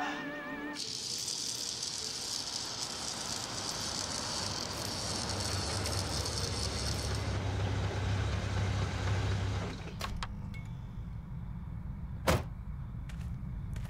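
A car's engine running and growing louder, then switched off about ten seconds in. A couple of seconds later a car door shuts with a single loud thump, with a few light clicks around it.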